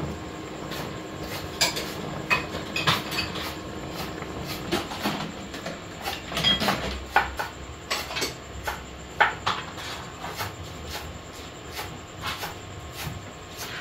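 Kitchen clatter: scattered, irregular knocks and clinks of a knife, utensils and dishes.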